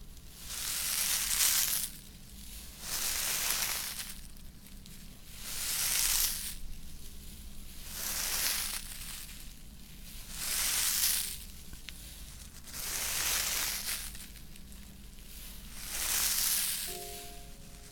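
Close-up rustling strokes of an object rubbed against an ASMR microphone: a slow swelling hiss about every two seconds, seven in all.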